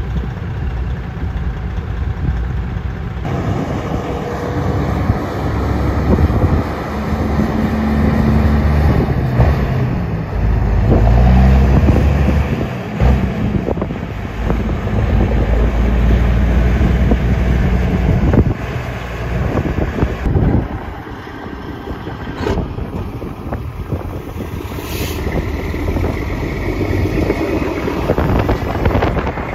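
Semi truck's Detroit diesel pulling a heavy load away under hard throttle, its engine note rising and falling through the gears. About twenty seconds in it drops back to a quieter running sound, with wind on the microphone.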